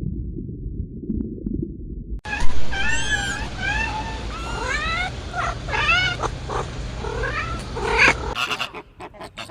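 Domestic cat meowing repeatedly: a string of drawn-out meows that rise and fall in pitch, starting about two seconds in, after a short stretch of muffled low sound.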